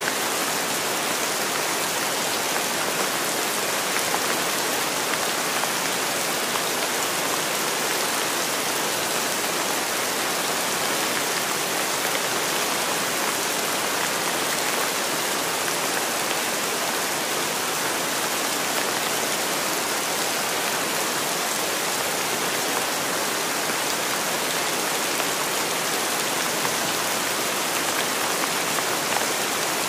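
Steady rain falling: an even hiss that holds at one level throughout.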